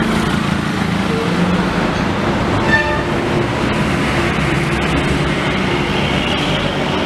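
Steady traffic noise of buses, cars and motorcycles passing close by, with a short horn beep about three seconds in.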